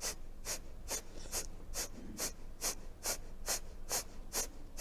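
Rapid, forceful exhalations through the right nostril with the left nostril held shut, in the yogic cleansing breath Virechan Gati. Short, sharp nasal puffs come in an even rhythm, a little over two a second.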